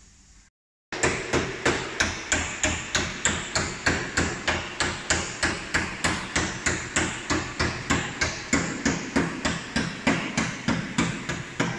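Hammer beating sheet-metal bodywork into shape to make room for large off-road tyres. It is a steady run of sharp, ringing blows, about three or four a second, starting about a second in.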